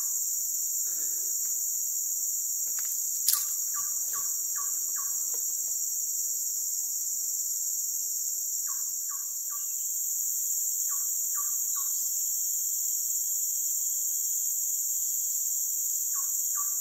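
Steady high-pitched drone of forest insects, with short runs of four or five quick call notes repeated several times, and a single sharp click about three seconds in.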